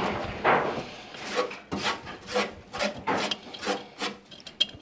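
Repeated rasping, scraping strokes, roughly two a second.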